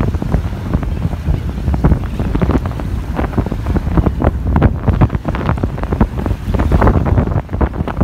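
Wind buffeting the microphone: a loud, gusty low rumble with constant irregular surges.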